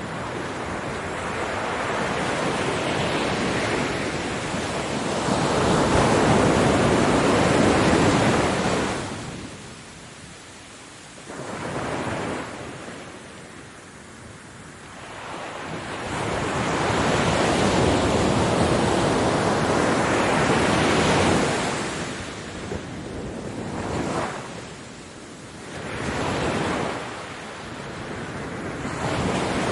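Ocean waves breaking on a beach: surf rushing in, swelling to a loud wash and ebbing away, about four waves over half a minute with quieter troughs between them.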